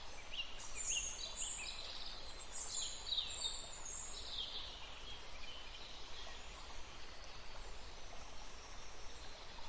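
Birds chirping: a quick run of short, high, falling calls for the first half, over a steady background hiss.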